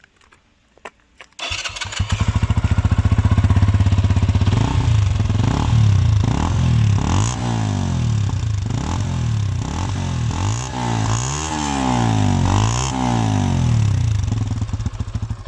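Keeway RKF 125's single-cylinder four-stroke engine, breathing through its stock exhaust, starts about a second and a half in and settles into an idle. It is then revved repeatedly, each rev rising and falling in pitch, and returns to idle near the end.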